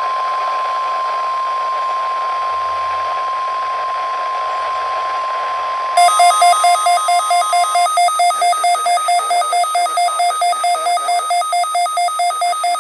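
NOAA Weather Radio's 1050 Hz warning alarm tone: one steady tone over radio hiss, sent for the required weekly test. About six seconds in, a weather radio receiver's alarm, set off by the tone, starts beeping rapidly in two alternating pitches, about four beeps a second. The steady tone stops about two seconds later while the beeping carries on.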